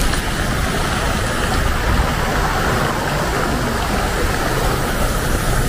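Arcing water jets of a plaza fountain splashing into a shallow basin, a steady rush of falling water.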